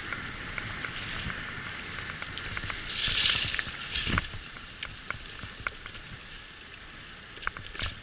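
Dryland dog-team rig rolling along a forest track behind a six-dog team: a steady rolling noise from the wheels with scattered clicks and rattles, a brief louder hiss about three seconds in and a knock just after four seconds.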